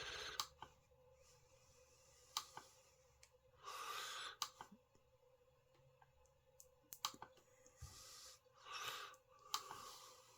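Quiet room with a person's breathing and sighing, a few short breathy exhales, and scattered light clicks in between.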